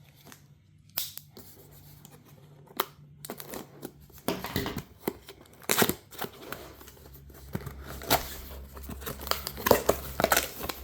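A new power tool's cardboard box and packaging being torn open and unpacked: tearing, crinkling and rustling with scattered clicks and knocks. It is sparse at first and gets busier about four seconds in.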